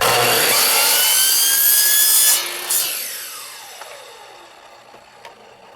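Small electric saw with a wood-cutting blade cutting vinyl rain gutter: the motor starts suddenly with a rising whine and runs loud for about two seconds, then is switched off and winds down with a falling whine.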